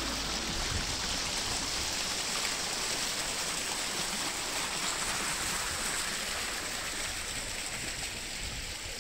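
Steady, even rush of running water, easing off a little near the end.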